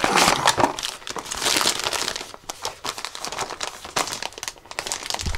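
Small cardboard box being opened and a plastic bag pulled out of it: crinkling and rustling of card and plastic, with a few light knocks from handling.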